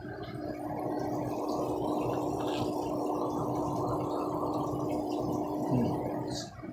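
Water gurgling and splashing in an aquaponics fish tank, with a steady low hum underneath; it swells in about half a second in and falls away near the end.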